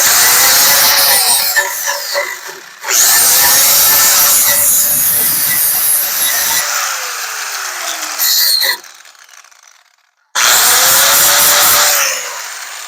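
Power grinder's wheel grinding the low spots of a dented car body panel down to bare metal, in three runs. After the long middle run the motor's whine falls away as it winds down, with a short pause before the last run.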